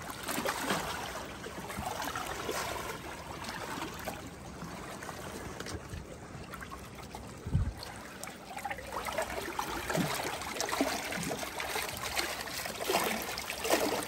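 Shallow seawater sloshing and trickling over rocks as a hooked angel shark is drawn in, with the fish splashing near the end. A short low thump about seven and a half seconds in.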